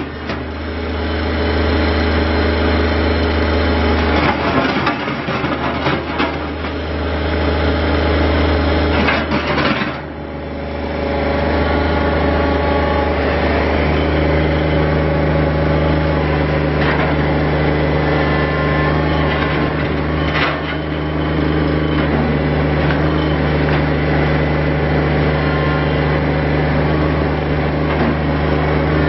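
Kubota BX25D three-cylinder diesel engine running steadily, with a few brief dips in level and a steady low tone joining about halfway through.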